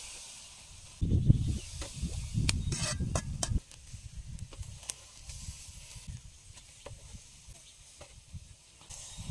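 Pork ribs sizzling over charcoal on a small wire grill, a steady hiss, with metal tongs clicking against the grate a few times about two and a half to three seconds in. A low rumble runs for the first few seconds.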